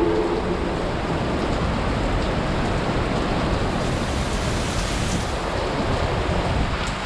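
Steady rush of typhoon wind and rain, with gusts buffeting the microphone in a low, uneven rumble.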